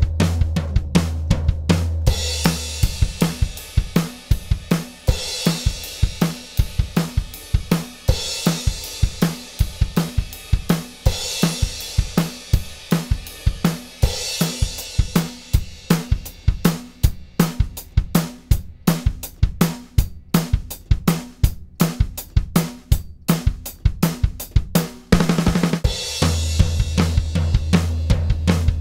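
Recorded drum kit playing a steady groove of fast kick and snare hits, with cymbal crashes about every three seconds, played as demo audio through the Retro Powerstrip channel strip compressor. A low bass note sounds under the drums at the start and comes back near the end.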